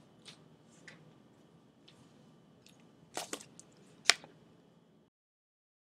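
Faint taps and scratches of a stylus writing on a screen. A little past three seconds comes a quick cluster of clicks, and about four seconds in one sharp, louder click. About five seconds in, the sound cuts off to dead silence.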